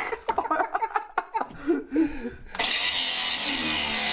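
Angle grinder with a cut-off disc starting to cut into a steel leaf-spring shackle bolt about two and a half seconds in: a steady, harsh grinding hiss with a low motor hum under it.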